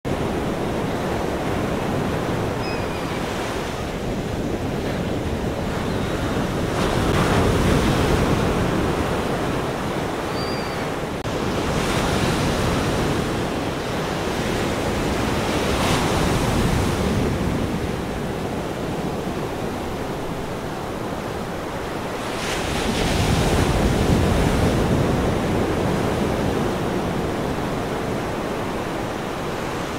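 Ocean surf: a steady wash of waves with four slow swells as waves break and roll in.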